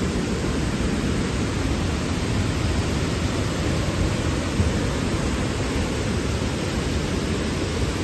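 Large waterfall pouring onto rocks close by: a steady, unbroken rush of water, heaviest in the low end.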